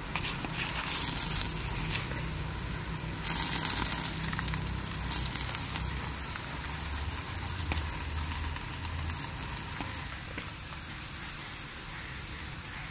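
Hot oil sizzling and crackling under fried black carp tail pieces in the pan, louder in two stretches within the first five seconds.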